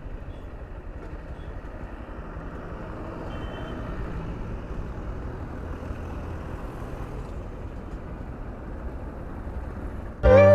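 Steady road-traffic noise from passing vehicles. Electronic music cuts in abruptly at the very end.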